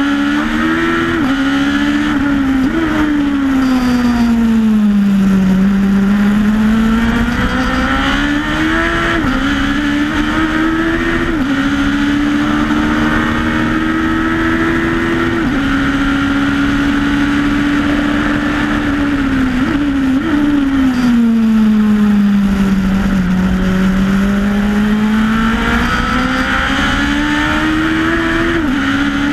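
Onboard sound of the 1974 Lola T370 Formula One car's Cosworth DFV V8 under hard acceleration. The engine note climbs and drops suddenly at each upshift, and twice falls slowly to a low note before climbing again.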